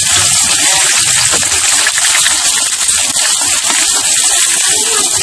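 Egg frying in hot oil in a wok, a loud steady sizzle, with a metal spatula scraping the pan now and then as the egg is broken up and stirred.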